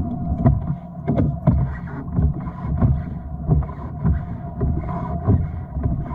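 Water slapping against a fishing kayak's hull in a run of low knocks, roughly two a second.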